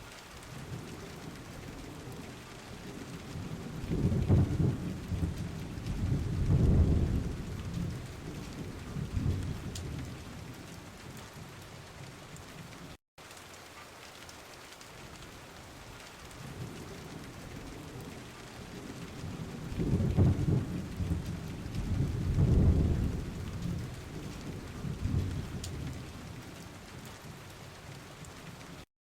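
Steady rain with rolling thunder: two low rumbles build a few seconds in and fade out. After a brief dropout about halfway through, the same pair of rumbles comes again.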